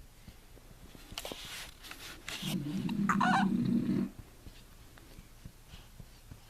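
A pet makes two short breathy noises, then a louder low grumbling vocal sound lasting about a second and a half, with a squeaky wavering whine over it near the middle.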